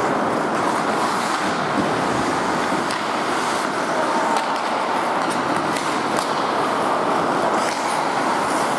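Ice hockey game in play: a steady wash of skates scraping the ice, with a few sharp clicks of sticks and puck.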